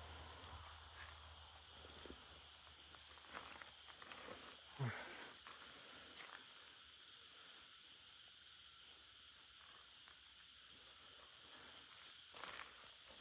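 Faint night-time insect chirring, crickets among them, with a few soft rustles. One short sound falling in pitch about five seconds in is the loudest thing.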